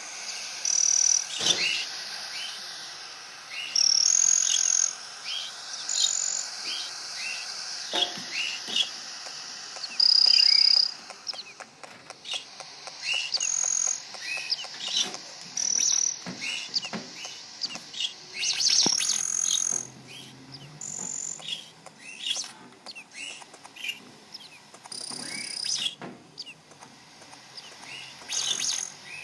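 Small birds chirping and whistling over and over: short high whistles and quick rising chirps, with many light clicks in between.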